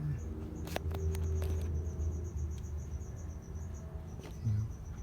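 Cricket chirping in a steady, even pulse train throughout, with a few sharp clicks about a second in and a low rumble underneath.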